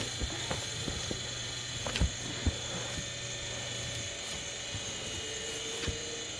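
A few light knocks and clicks, kitchen utensils being handled during cooking, over a steady background hum that fades about four seconds in.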